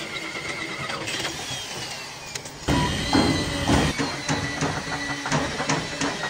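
Workshop machinery noise, then, after a sudden jump in level about three seconds in, rhythmic hammer strikes on metal at about three a second.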